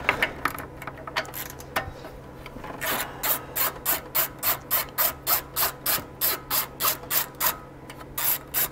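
A 1/4-inch ratchet with a 10 mm socket backing out an engine-cover bolt, its pawl clicking evenly at about three to four clicks a second, with a short break near the end. The first few seconds hold only a few scattered light clicks and rubs as the socket is fitted onto the bolt.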